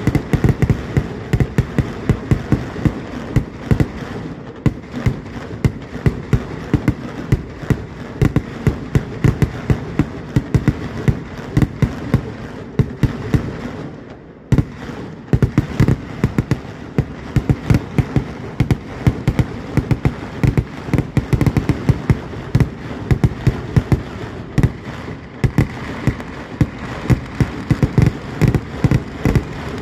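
Kerala vedikkettu fireworks going off in dense, rapid volleys of loud bangs, several a second. There is a brief lull about halfway through before the barrage resumes.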